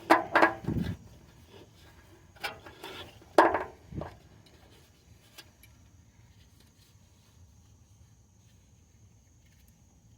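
Hand-tool and parts handling: a few knocks and metal clinks in the first four seconds, one ringing briefly, as the oxygen sensor's wiring harness is fed back through the hole. After that, only a faint hush.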